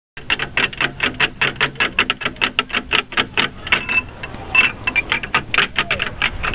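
Metal tubes of a playground chime panel played by a child's hand: a quick, even run of clacks, about five a second, with a brief ringing tone now and then.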